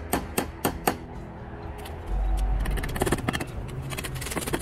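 Hammer striking repeatedly, about four blows a second for the first second, then after a short break a faster run of blows from about three seconds in. A brief low rumble just after two seconds is the loudest sound.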